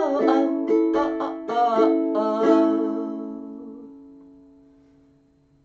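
Ukulele strumming the last few strokes of the song, then a final chord left to ring and fade out over about three seconds.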